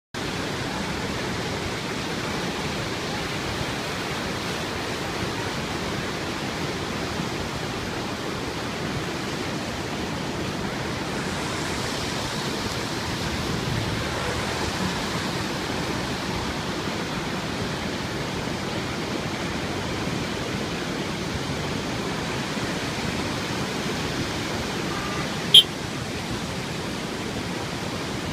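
Heavy rain falling steadily, a dense even hiss. A single sharp click about three seconds before the end.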